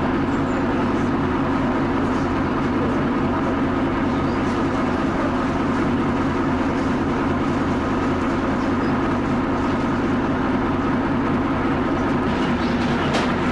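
Leyland double-decker bus's Cummins L10 diesel engine running at a steady, unchanging pace.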